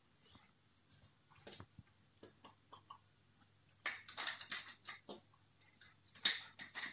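Wooden pepper mill grinding pepper: a run of dry, crunching clicks about four seconds in, with another short burst near the end. A few faint scattered clicks and taps come before it.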